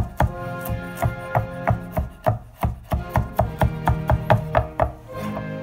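Chef's knife chopping okra on a wooden cutting board: quick, even knocks, about three to four a second, that stop about five seconds in. Music plays underneath.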